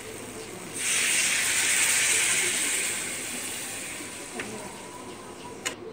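Fish head, potato chunks and rice grains sizzling in hot oil in a pan: a loud hissing sizzle comes on suddenly about a second in and slowly dies down, with a sharp click near the end.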